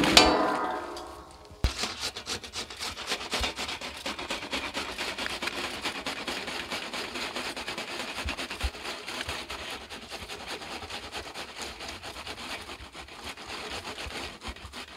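Opens with a brief rush as wet vegetables are tipped out of a steel bowl onto a mat. From about two seconds in, handheld steel box graters rasp steadily with quick scraping strokes as food is grated over them.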